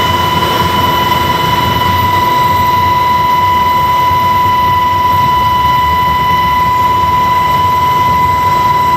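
Turboprop aircraft engines and propellers heard from inside the cabin: a loud, steady drone with a high, steady whine over it.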